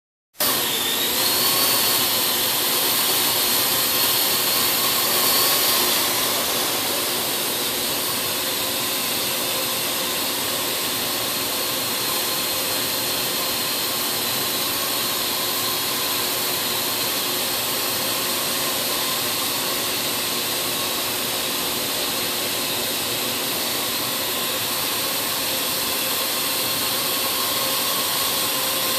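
Parrot drone's electric motors and propellers starting abruptly and spinning up, then running as a steady high whine with a strong airy hiss. Slightly quieter after about six seconds.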